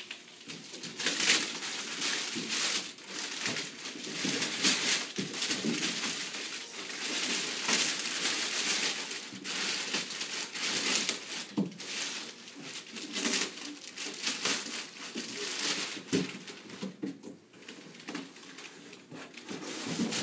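Wrapping paper being torn and crumpled off a large gift box, in irregular bursts of rustling and ripping.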